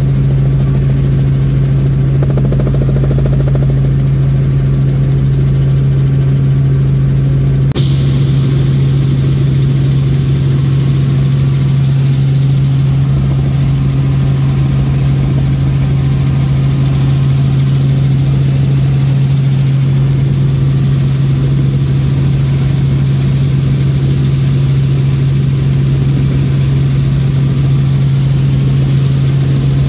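Helicopter rotor and engine heard from inside the cabin: a loud, steady drone with a strong low hum. There is one sharp click about eight seconds in, after which the sound changes slightly.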